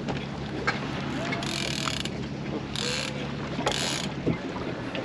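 Mechanical ratcheting and clicking, with three short hissing rushes about a second apart, over a steady low hum that stops about four seconds in.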